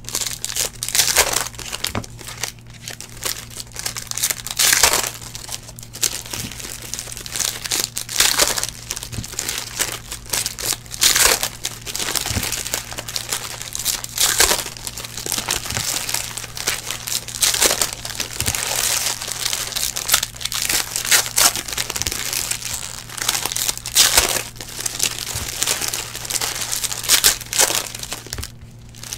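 Foil wrappers of Donruss football card packs being torn open and crumpled by hand: repeated crinkling and tearing every second or two, over a steady low hum.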